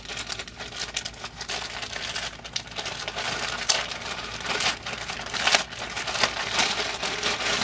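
Plastic packaging being torn open and handled: continuous crinkling and rustling with sharp crackles, loudest about five and a half seconds in.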